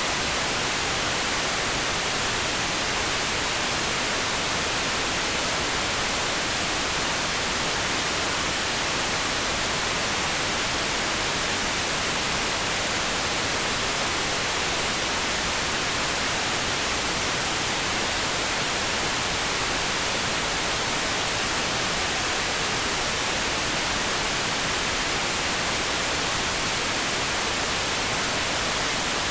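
Generated pink noise: a steady, unchanging hiss with no tones or breaks.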